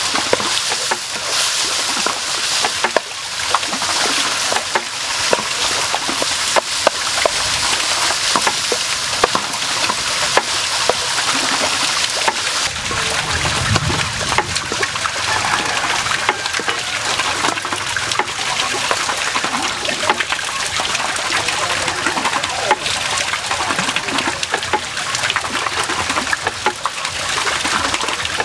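Diced meat and vegetables sizzling steadily in a hot non-stick wok, stirred with a wooden spatula, with frequent sharp clicks throughout and a dull bump about halfway.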